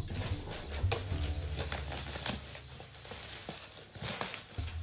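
Black plastic bag rustling and crinkling as hands pull it open and draw out a packaged box.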